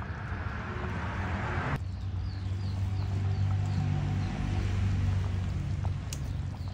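A low engine hum that grows louder and then fades, with a hiss that cuts off suddenly just under two seconds in and a short run of high chirps after it.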